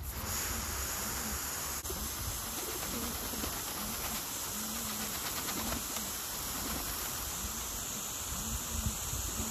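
Steady hiss of water spraying from a hose over a pigeon loft, with pigeons cooing: low, rounded coos about once a second.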